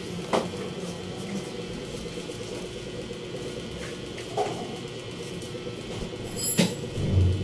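Steady electric hum of running appliances, with a few light clicks and knocks and a heavier low thump near the end.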